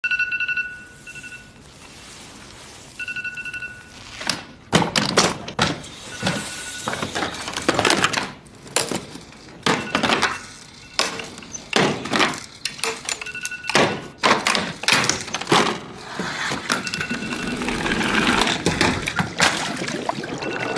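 A phone alarm beeping a steady high tone. From about four seconds in, it is followed by a long run of heavy thunks and breaking, crashing sounds, and the alarm beep keeps coming back briefly between the blows.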